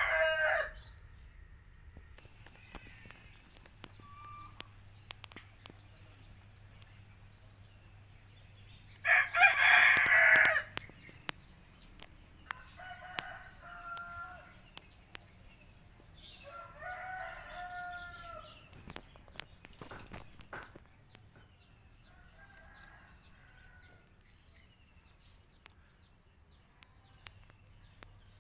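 Roosters crowing: one loud, close crow about a third of the way in, then fainter crows from farther off. Small birds chirp throughout.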